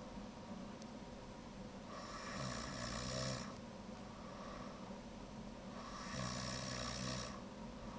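A person snoring: two long snores about four seconds apart, each lasting about a second and a half with a low buzzing rattle at its peak.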